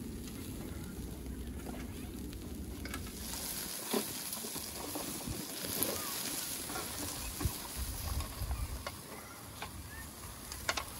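Lamb kebabs and potatoes on metal skewers sizzling over a charcoal grill, a steady hiss with a sharp crackle or pop every couple of seconds.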